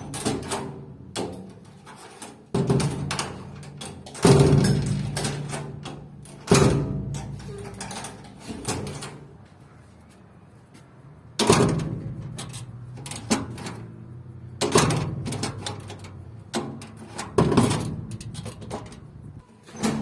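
A door being shut again and again, about eight slams with a short ringing after each, testing whether the latch now catches after being shimmed with a piece of iron.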